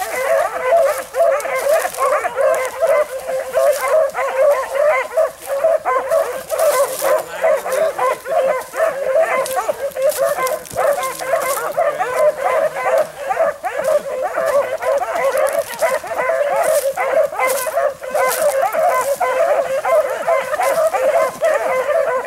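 A pack of rabbit dogs barking and baying without a break, several voices overlapping: the dogs are in full cry on a rabbit's trail.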